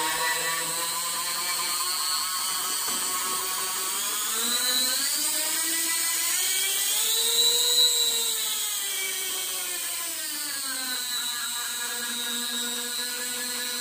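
Small 130-watt electric rotary tool (porting grinder) running with its flexible shaft attached, a steady motor whine. Its pitch rises over several seconds to a peak about halfway through, then falls back and holds steady.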